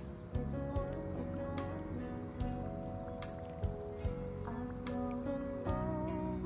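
Steady, high-pitched chorus of insects, over background music with held notes that change every second or so.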